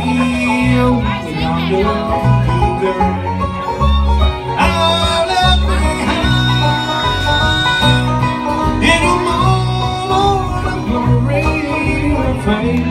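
Live bluegrass-country band playing: fiddle and plucked guitar over a steady, repeating bass line.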